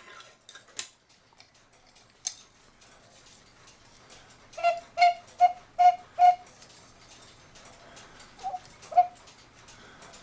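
Cuckoo clock whistle pipe giving short toots of one steady pitch as its bellows is worked by hand: five quick toots about halfway in, then two more near the end, after a few light handling clicks.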